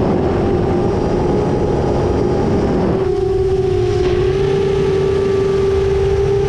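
Motors and propellers of a 10-inch long-range FPV quadcopter, a steady pitched hum heard from the onboard camera in flight. For about the first three seconds a rough rush of air sits over the hum, then it clears and the hum carries on alone.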